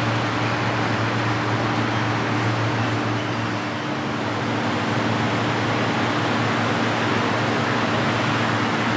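Steady low hum with an even hiss over it, unchanging throughout, with no separate knocks or clicks.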